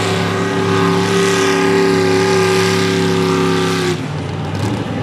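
Mini rod pulling tractor's engine running flat out under load while it pulls the sled, holding a steady high pitch. About four seconds in it drops off abruptly to a lower, rougher sound as the throttle comes off at the end of the pull.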